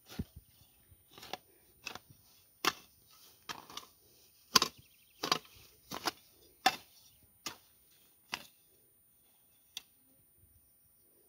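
Hoe blade chopping into soil and weeds, a regular series of sharp strikes about one every three-quarters of a second. The strikes stop about eight and a half seconds in, with one last strike a second later.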